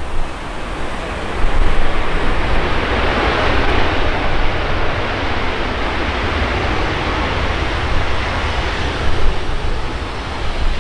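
Airbus A319 jet airliner landing: a broad rushing jet roar that swells about two seconds in and slowly eases off, with wind buffeting the microphone underneath.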